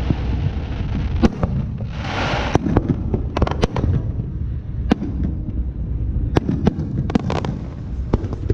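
Fireworks going off: scattered sharp bangs and crackling pops, with a short hiss about two seconds in and a quick cluster of pops about seven seconds in, over a steady low rumble.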